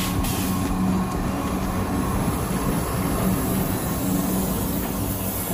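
Train running by on the rails: the steady drone of a diesel locomotive's engine over the rolling noise of the wheels.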